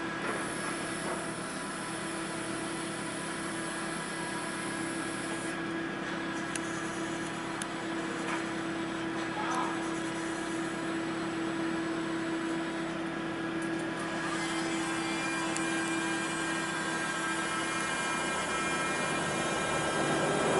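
Electric hydraulic pump motor of a Linde K10 tri-lateral man-up order picker running with a steady whine as the tri-lateral head turns the forks. Near the end the whine stops and a lower, slightly louder hum takes over.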